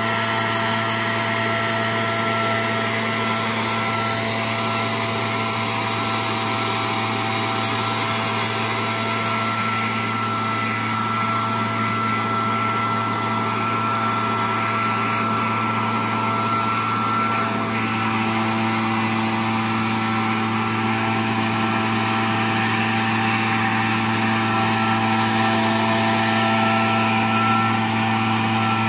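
Oleo-Mac/Cifarelli MB90 backpack power mist blower, its small two-stroke engine running steadily at high speed and driving the fan, with rushing air and a steady high-pitched whine.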